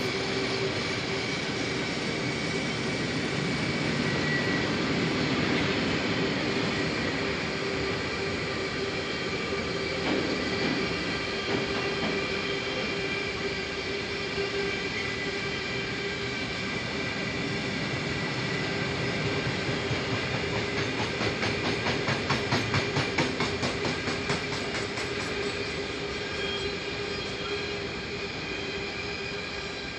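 Long freight train of tank wagons rolling past, with a steady wheel squeal running through it. About twenty seconds in, the wheels clack rhythmically over a rail joint for several seconds, the loudest part, before the sound slowly fades near the end.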